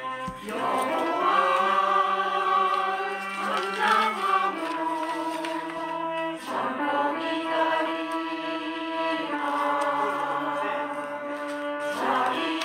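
Church choir singing a hymn in rehearsal, long held chords that change every couple of seconds.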